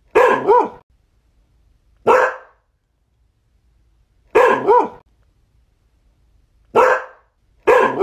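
A dog barking in short bursts about every two seconds. The bursts alternate between single barks and quick double barks, with silence between them.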